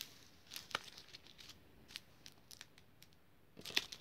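Small plastic bags of diamond-painting drills handled on a table, crinkling and rustling in short scattered crackles, loudest about half a second in and again near the end.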